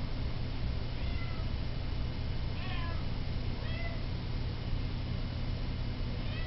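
Domestic cat meowing in short calls that fall in pitch, three times and again at the very end, over the steady hum of a running air conditioner.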